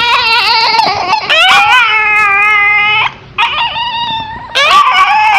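A deer-head Chihuahua making high, wavering, drawn-out cries like a child crying: one long cry, then two more after short breaks. The owner is unsure whether this voice comes from a throat defect he was born with or is simply how deer-head Chihuahuas sound.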